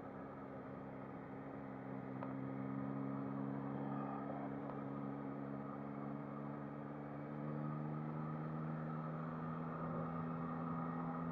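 Yamaha MT-09 SP's three-cylinder engine running at a steady, nearly unchanging pitch while the bike is ridden, with wind rush over it.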